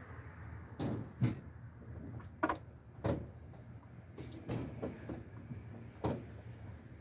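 About six irregular clunks and knocks, spaced roughly a second apart, over a low steady hum. They come from getting into a 1963 Volkswagen Beetle and pumping its brake pedal to test the newly filled master cylinder reservoir for leaks.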